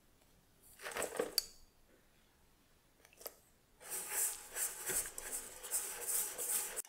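Icing sugar tipped into a stainless steel mixing bowl about a second in, then a hand wire whisk stirring the dry mix for about three seconds, its wires scraping and clicking against the steel.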